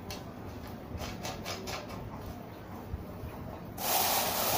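Light metal clicks and taps as rusty steel rods and screws are handled and fitted into a cast-iron base ring. Near the end there is a brief, louder hiss lasting under a second.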